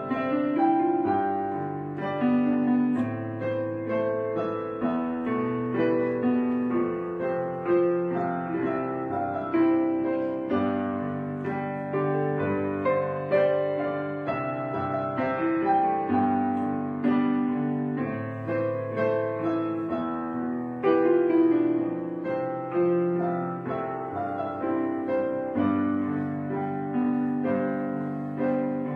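Background piano music: a continuous flow of notes, each struck and fading.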